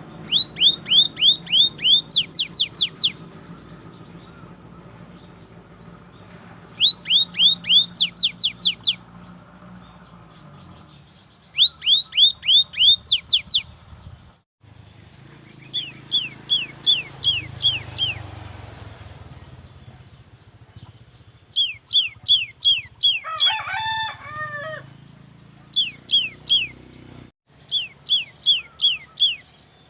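Cinereous tit (gelatik batu) singing: repeated bouts of about eight quick, downslurred whistled notes, several bouts ending in a run of higher, sharper notes, with short pauses between. About two-thirds through, a brief wavering, lower call cuts across the song.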